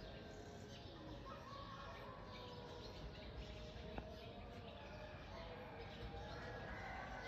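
Faint outdoor ambience of small birds chirping, with a single sharp click about four seconds in.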